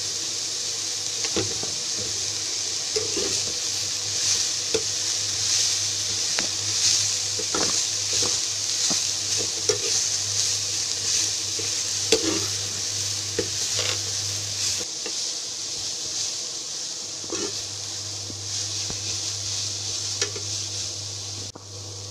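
Shredded cabbage and onion sizzling in oil in a steel pan while being sautéed, with a spoon stirring and scraping against the pan now and then. A steady low hum runs underneath and drops out for a couple of seconds about two-thirds of the way through.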